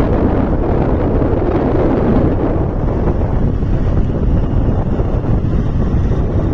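Wind buffeting the microphone on a moving motorcycle: a steady, deep rushing noise with no break.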